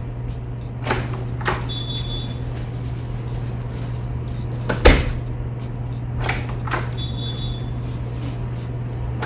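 Door swung shut by a spring-loaded self-closing hinge, latching with one loud bang about five seconds in. Lighter knocks and clicks come before and after it, along with two brief high squeaks, over a steady low hum.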